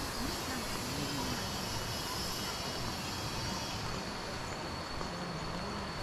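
Cicadas singing in the forest: a steady, high, even drone over a constant background wash.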